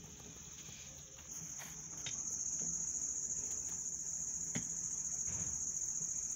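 Crickets trilling steadily at a high pitch, with a few faint clicks now and then.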